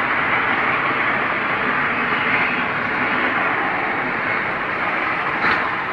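A loud, steady drone from the sky, an even noise with faint held tones beneath it, one of the so-called strange sky sounds. Its source is unknown; it seemed to come from just overhead and is unnerving to hear.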